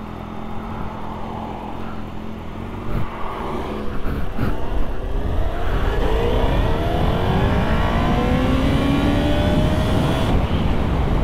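2008 Honda CBR1000RR inline-four sport-bike engine pulling away from a stop and accelerating hard, getting louder about three to four seconds in, then its pitch climbing steadily through a long pull in gear.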